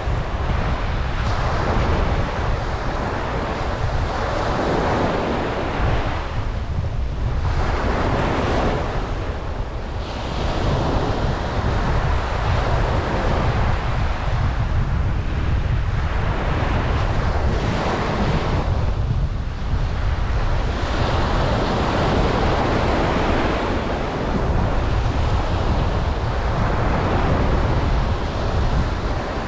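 Ocean waves breaking and washing up a beach, surging and ebbing every few seconds.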